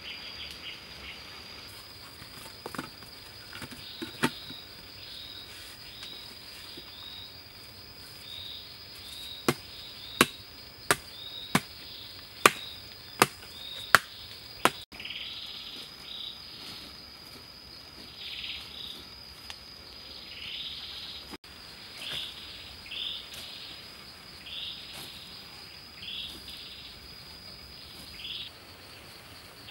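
A steady high-pitched insect drone runs through and stops near the end. In the middle a hoe strikes the soil about seven times, roughly a second and a half apart at first and then quicker; these are the loudest sounds. After them come softer swishing scrapes of loose soil being dragged and pushed.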